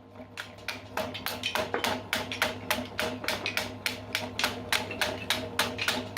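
A woodworking machine running with a steady hum and a rapid, even series of clicks, several a second.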